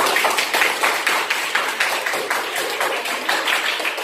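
A classroom of students applauding: many hands clapping at once, the claps thinning out near the end.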